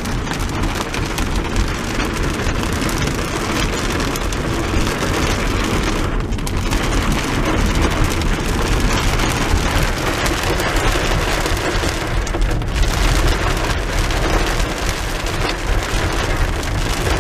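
Heavy rain drumming on a car's roof and windows, heard from inside the cabin as a loud, steady hiss over a low rumble, easing briefly twice.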